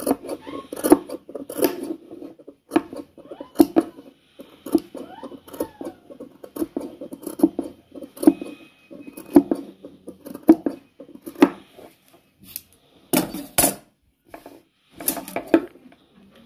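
Tailor's scissors snipping through cotton fabric in a steady series of short strokes, about one a second, while trimming the seam allowance around a stitched neckline. There is a short pause about twelve seconds in, and a few louder snips after it.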